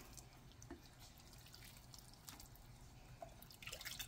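Very quiet: faint drips of soup broth falling from a ladle into a bowl of noodles, with a few soft ticks near the end.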